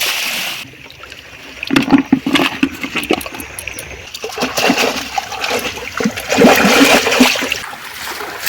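River water splashing and trickling in the shallows, with scattered small knocks, and a louder stretch of splashing in the second half.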